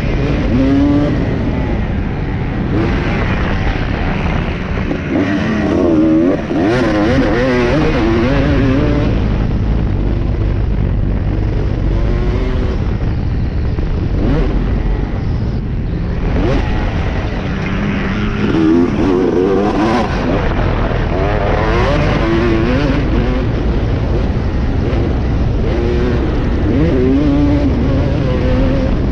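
Motocross dirt bike engine racing hard, its pitch climbing and dropping again and again as the rider throttles on and off round the track, heard from the rider's own helmet.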